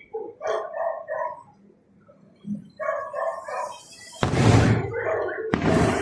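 A dog barking in two quick runs of short barks, then two loud firework bangs, each one trailing off.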